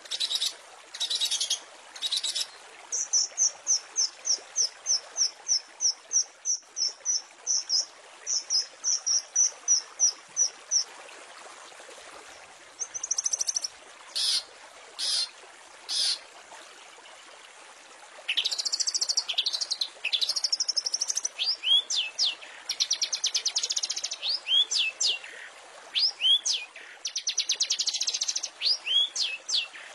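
Long-tailed shrike (cendet) singing a varied, mimicry-filled song over a steady hiss: a fast run of repeated high notes, scattered sharp notes, then a busy stretch of slurred whistles and rapid trills in the second half.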